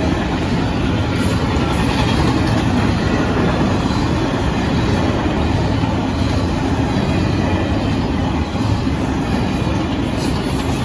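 Union Pacific intermodal freight train passing close by, its container-laden cars rolling steadily over the rails in a loud, unbroken rumble.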